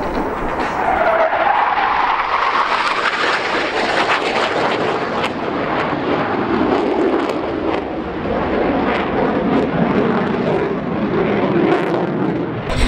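Military jet flying a fast low pass: loud engine noise that drops in pitch as it goes by in the first second or two, then a long steady rush of jet noise.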